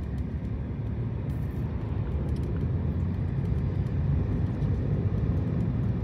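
Car driving along, heard from inside the cabin: a steady low rumble of engine and tyre noise.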